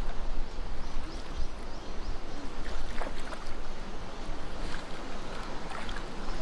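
Valley stream water rushing over rocks, a steady noise with a few sharp splashes in it.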